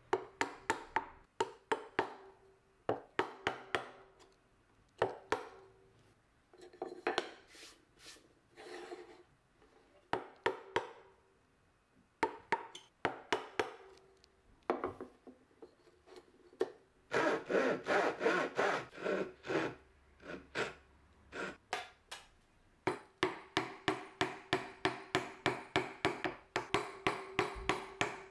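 Hand chisel cutting into Tasmanian oak end grain to clear dovetail waste: a string of sharp clicks and cracks as the edge bites the fibres, with a stretch of denser scraping a little past halfway and quick, evenly spaced clicks near the end.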